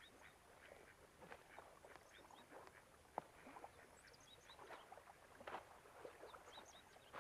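Faint outdoor ambience on a lakeshore at dusk: soft, irregular small rustles and splashes, with brief high chirps that come in pairs every second or two.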